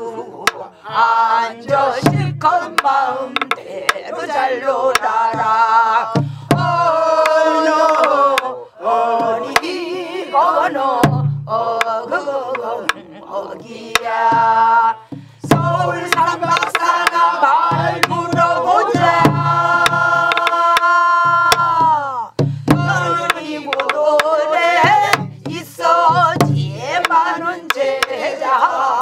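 Namdo (southwestern Korean) folk singing with wavering, bending vibrato: a woman's voice leads and a group sings along. A buk barrel drum keeps the rhythm underneath with regular low thumps and sharp stick clicks.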